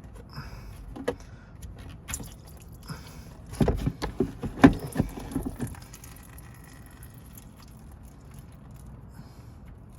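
A run of sharp knocks and clicks, densest and loudest in the middle few seconds, from hand work at a car's radiator drain plug, with a few scattered clicks before it.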